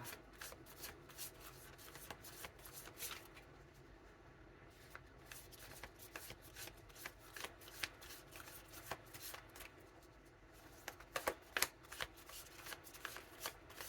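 Tarot cards being shuffled and handled: quiet, irregular card snaps and slides, with a denser flurry about eleven seconds in.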